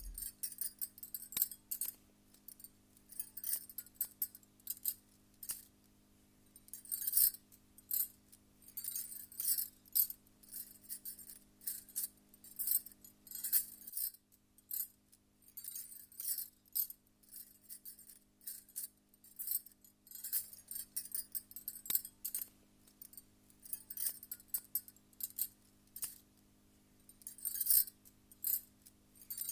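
Bangles on a wrist clinking and jingling in irregular bursts as the arm moves, over a steady low hum that drops out briefly about halfway.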